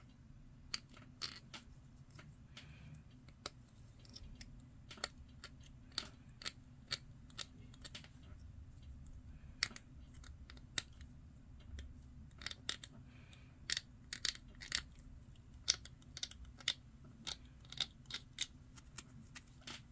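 Hobby knife blade scraping and nicking at the edge of a small hard-plastic model kit part, making irregular short sharp clicks, more frequent in the second half.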